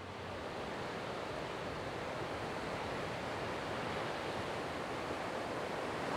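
Steady wash of ocean surf breaking on the beach, a little louder after the first second.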